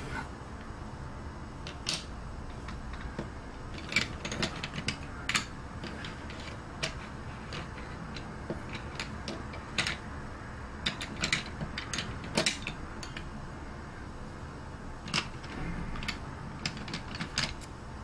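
Irregular sharp clicks and clacks, some single and some in quick clusters, over a faint steady low hum.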